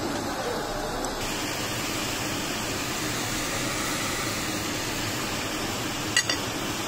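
Steady hiss and hum of ventilation in a restaurant dining room, with two sharp clicks close together near the end.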